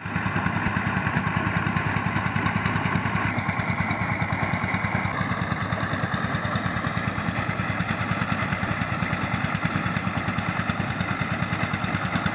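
An engine running steadily with a fast, even chugging beat.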